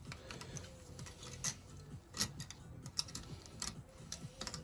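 Light, irregular clicks and taps of small metal fuel-pump parts being handled on a workbench.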